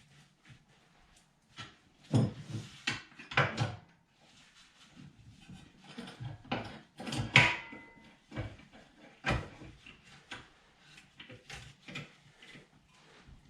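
Irregular clanks and knocks of metal parts and tools being handled on a workbench, with one brief metallic ring about seven seconds in.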